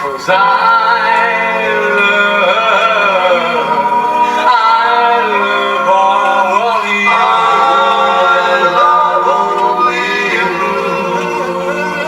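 Doo-wop vocal group singing a cappella in close harmony: held backing chords under a lead voice that slides and bends between notes.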